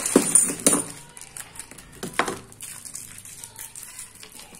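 A plastic bag rustling as metal cabinet hinges are shaken out of it in the first second, then the hinges clinking and clicking against a plywood tabletop as they are handled.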